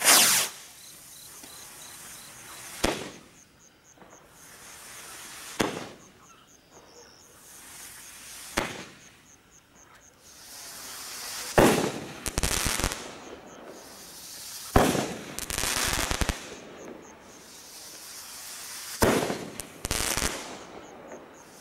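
Task Force 12 firework rockets fired one after another. Each climbs with a hiss that grows louder and bursts with a sharp bang, about every three seconds, with the first bang the loudest.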